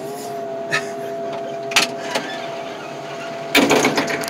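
Hydraulic grapple loader running steadily, a constant mechanical whine held at one pitch. A few light clicks, then a loud burst of rattling near the end.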